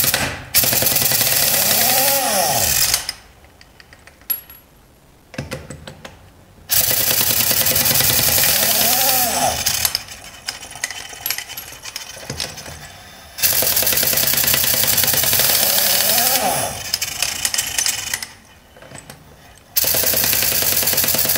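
Impact wrench hammering on the lug nuts of a truck's Budd stud-pilot front wheel, in four long bursts of about three seconds with short clanks in the pauses between. It is breaking loose 1.5-inch nuts that the owner suspects have not been off in a very long time.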